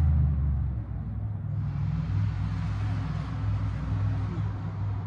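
A low, steady engine rumble, like a vehicle running at idle, with a hiss joining about a second and a half in.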